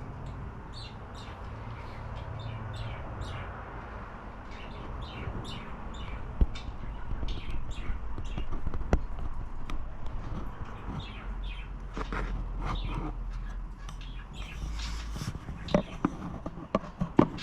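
Cockatiels chirping in many short, repeated calls, louder near the end, with a couple of sharp clicks.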